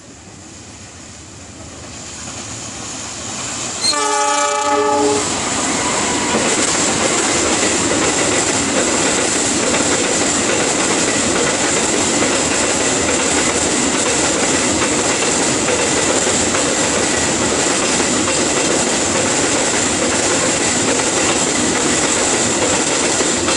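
Empty cement freight train running through a station without stopping. Its approach grows louder, the locomotive horn sounds once for about a second around four seconds in, then the passing locomotive and empty cement wagons make a steady, loud rumble of wheels on rail.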